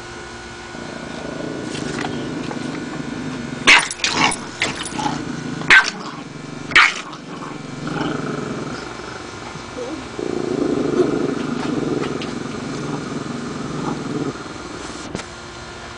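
Two small dogs, a Pomeranian and a Shih Tzu, sparring: steady growling throughout, broken by a few sharp, loud barks or snaps between about four and seven seconds in, then a longer stretch of louder growling.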